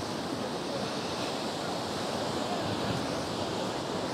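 Rough sea surf and wind on the seafront, a steady wash of noise that swells slightly midway.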